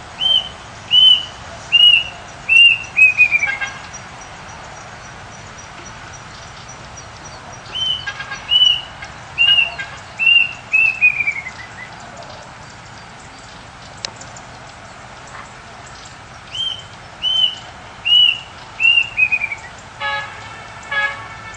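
A songbird singing three phrases, each four or five clear whistled notes followed by a quick falling run. Near the end there are two short, lower-pitched calls.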